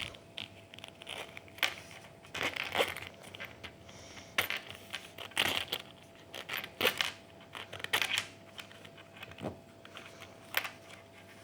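Handling noises as the next fidget spinner is got out: irregular clicks, knocks and crinkly rustles, with a faint steady hum beneath.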